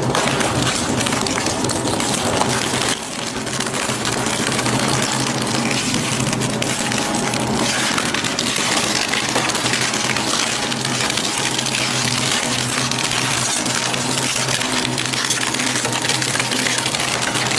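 Twin-shaft industrial shredder chewing up tree branches and logs: a continuous dense crackling and splintering of wood over the steady low hum of the machine's drive, with a brief drop in level about three seconds in.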